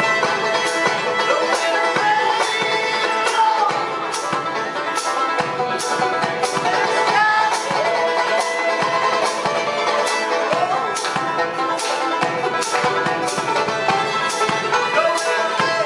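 A bluegrass tune played on fiddle, banjo and mandolin together, without a break.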